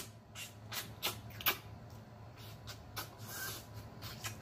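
Close-up mouth sounds of eating: a quick series of wet lip smacks and clicks as a man sucks meat off a turkey neck, then a short slurp a little over three seconds in.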